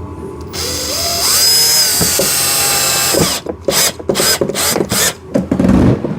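Power drill driving a screw into a fender tab. It spins up with a rising whine, runs steady for about two and a half seconds, then gives a run of short bursts as the screw seats and grabs.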